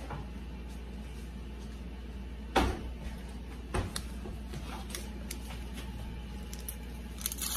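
Steady low hum with a sharp knock about two and a half seconds in, a lighter knock about a second later, and a few small clicks near the end.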